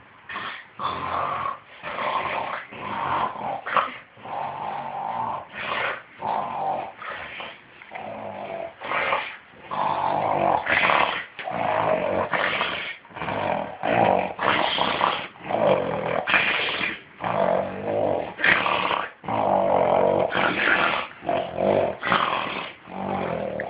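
Loud, rasping snoring, a quick rhythmic run of harsh breaths about once a second, deep enough to be called a grown man's snore.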